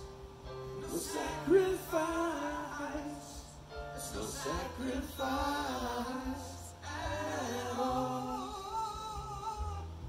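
A man and his Amazon parrot singing together: a wordless, warbling melody with wavering, drawn-out notes.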